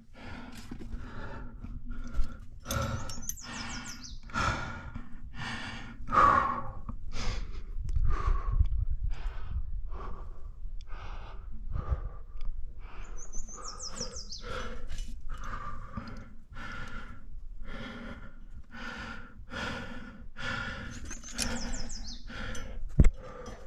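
A climber's hard, rhythmic breathing from the effort of climbing, about three breaths every two seconds. A bird's descending whistled song sounds three times, and a sharp knock comes near the end.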